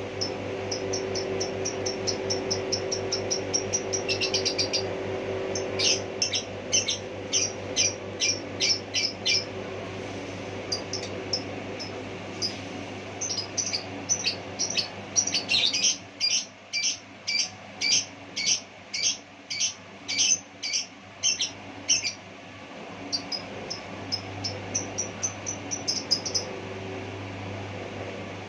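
A bird chirping in runs of short, high chirps, about three or four a second, broken by brief pauses, over a steady low hum.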